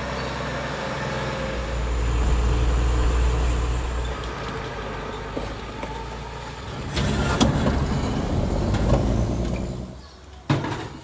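Truck-tractor engine of a Cuban camel bus, a passenger trailer hauled like a semi-trailer, running as it drives, with a low steady rumble that swells about two seconds in. About seven seconds in it turns louder and rougher with some clatter, then falls away near the end, followed by a sharp knock.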